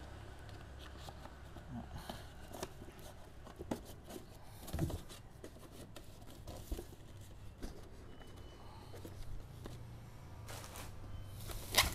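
Cardboard and paper knife boxes being handled and shifted inside a cardboard shipping carton: scattered light knocks, taps and scuffs, over a steady low hum.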